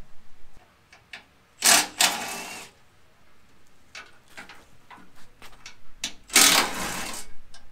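Cordless power tool with a socket running in two bursts of about a second each, spinning out the 12 mm bolts that hold an underbody skid plate, with light clicks between the bursts.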